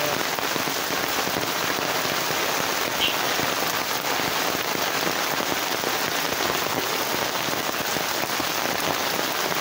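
Heavy rain pouring steadily onto a waterlogged road and foliage: a dense, even hiss.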